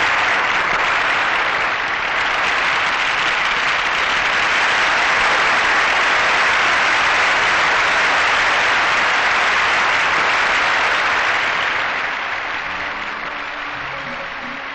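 Audience applauding, a steady dense clapping that fades out over the last few seconds as music comes in underneath.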